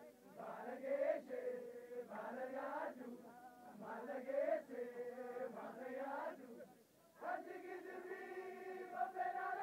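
Faint chanting by a group of voices, in phrases of a second or two, with a short pause about seven seconds in.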